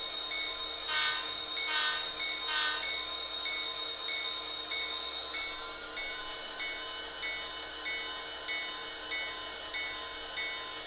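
Digital sound decoder of an HO-scale Athearn Genesis Norfolk Southern GP40-2 model locomotive: the bell rings steadily at about two strokes a second, the horn gives three short toots about a second in, the usual signal for backing up, and the diesel engine sound rises in pitch around the middle as the locomotive throttles up.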